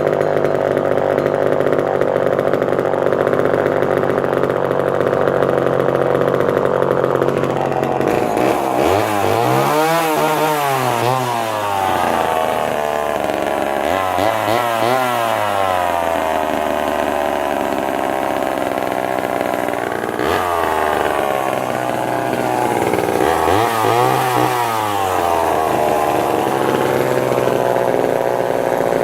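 Homelite Super XL two-stroke chainsaw engine running very loud with its exhaust cover missing. It idles steadily, then is revved up and let fall back about four times in the second half.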